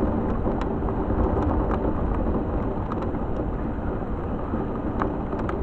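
Thunderstorm: a low, steady rumble of thunder with the hiss of rain, and scattered faint ticks through it.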